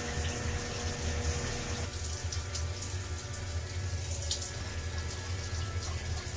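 Water running steadily from a shower, an even hiss over a low hum.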